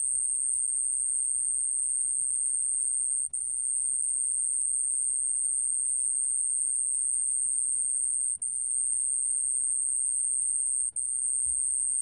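Small bell cricket (Korean 좀방울벌레) singing at 29 °C: one continuous, very high-pitched trill that breaks off for an instant three times.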